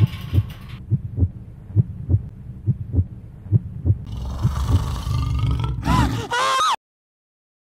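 A film-score heartbeat thumping about twice a second under a swelling rush of noise, ending in a shrill wavering screech that cuts off abruptly near the end.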